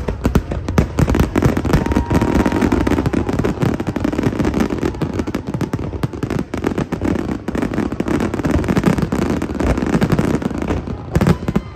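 Fireworks display in full barrage: many aerial shells bursting in rapid succession, a continuous run of bangs and crackling with no pause between them.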